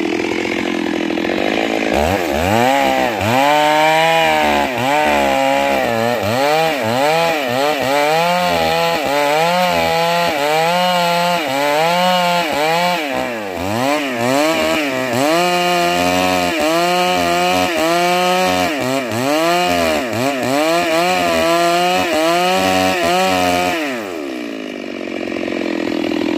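Chainsaw idling, then opened to full throttle about two seconds in and sawing into a large tree trunk, its engine note dipping and recovering roughly once a second as the chain bites under load. A couple of seconds before the end it drops back to idle.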